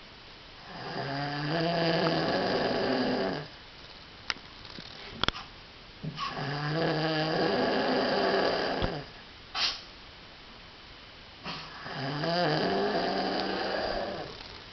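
A cow snoring: three long snores about five seconds apart, each lasting around three seconds, with a few short clicks in the gaps between them.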